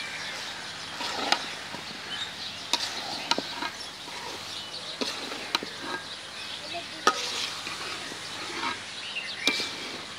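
Metal spatula stirring frying chickpeas in a metal karai, scraping and knocking sharply against the pan at irregular intervals, over a steady sizzle from the hot pan.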